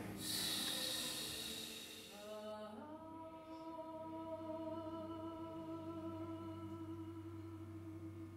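A breathy hiss, then a voice slides up into a single sung note about two and a half seconds in and holds it steadily: a sustained tone in an improvised vocal exercise.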